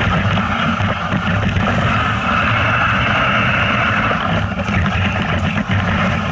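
Steady wind buffeting the microphone over a continuous rushing hiss, the sound of fast travel over snow, with a low rumble underneath.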